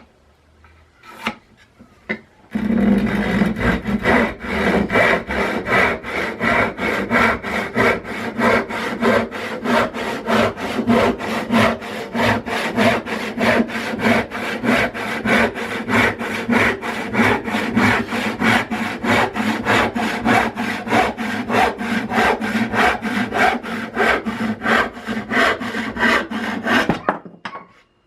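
Restored Disston skew-back hand saw, its teeth freshly jointed and refiled, cutting through wood in a long run of steady, even strokes that start about two and a half seconds in and stop shortly before the end.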